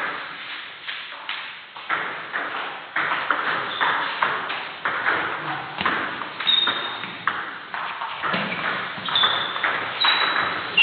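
Table tennis ball clicking off bats and the table in a doubles rally, a sharp click about twice a second. A few short high squeaks come in after the middle.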